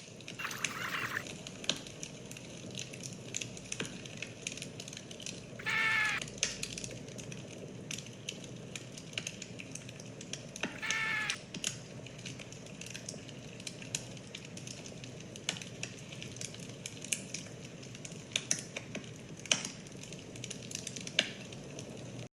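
Quiet steady background hiss with scattered small clicks, and two short animal calls, one about six seconds in and another about eleven seconds in.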